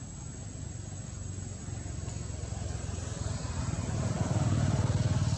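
Low engine rumble of a passing motor vehicle, building up over the second half, with a thin steady high whine throughout.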